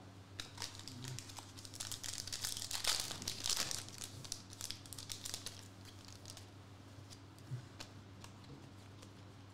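Foil wrapper of a Panini Contenders basketball card pack being torn open and crinkled by hand. It makes a dense crackling rustle, loudest around three to four seconds in, then dies down to a few soft ticks as the cards are handled.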